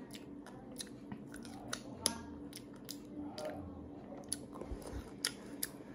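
A child chewing fruit close to the microphone, with many small, sharp mouth clicks and smacks.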